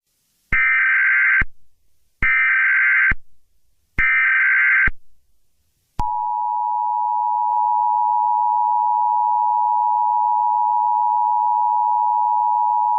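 Emergency Alert System signal: three short, screechy SAME header data bursts, about a second each with a pause between. About six seconds in, the steady two-tone EAS attention signal starts and keeps going.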